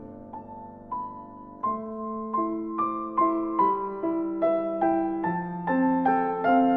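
Background music: a piano plays single notes that fade after each strike, a few sparse ones at first, then a steady run of about two or three a second over low held notes, growing louder.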